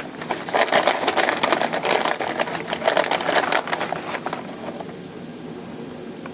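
Dry sphagnum moss and a plastic bag crackling and rustling as hands pull moss out and pack it around orchid roots. The crackling dies down about four and a half seconds in.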